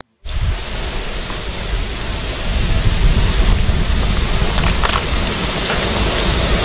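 Wind buffeting the microphone: a steady, loud rushing rumble with no clear pitch.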